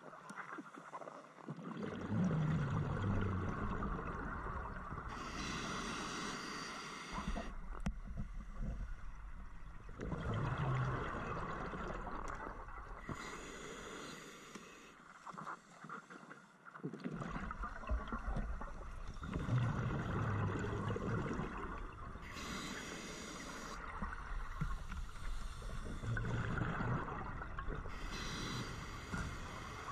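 Scuba diver breathing through a regulator underwater: a short hissing inhale about every eight seconds, each followed by a longer bubbling exhale, four breaths in all.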